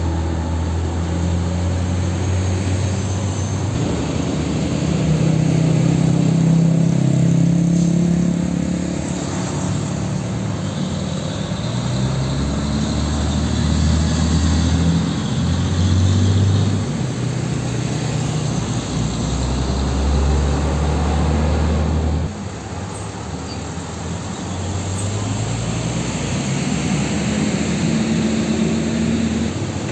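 Heavy diesel trucks passing one after another on a road, their engines running with a low drone over tyre and road noise. The sound drops abruptly about two-thirds of the way through, then builds again as the next truck approaches.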